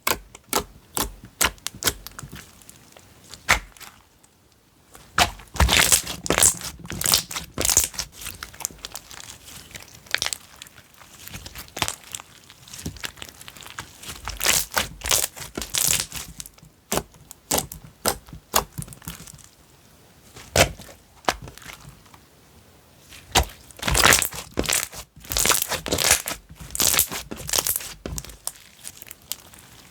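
Slime being squished and pulled by hand, making dense irregular clicks and crackling pops in bursts, with the loudest clusters a few seconds in and again near the end.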